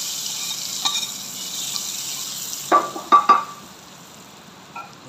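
Hot tarka of oil, browned onions and garlic sizzling as it hits the cooked masoor dal, the hiss fading over a couple of seconds while a steel ladle stirs it in. About three seconds in, three sharp knocks of the ladle against the pot come in quick succession.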